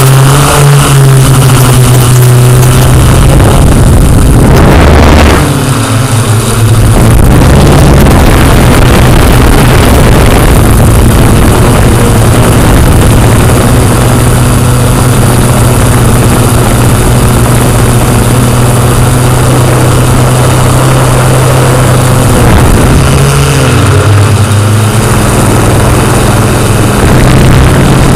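Loud, steady engine drone of a low-flying aircraft in flight, holding one low pitch, with a brief dip about five seconds in and a shift in pitch a few seconds before the end.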